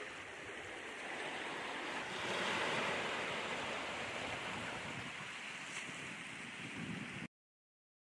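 Sea water washing and surging, with wind noise on the microphone; it swells about two seconds in, then cuts off suddenly near the end.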